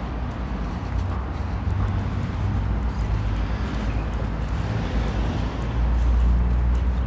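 Steady rumble of city street traffic, growing louder about six seconds in.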